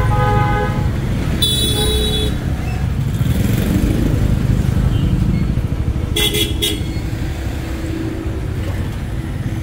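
Busy street traffic, with motorbike and car engines running close by and vehicle horns tooting: a horn sounds for about a second, about one and a half seconds in, then a quick double toot comes around six seconds in.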